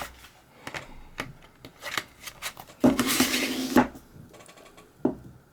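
Handling noises: a series of light clicks and knocks. About halfway through comes a louder rubbing or scraping noise lasting about a second, then a few fainter clicks.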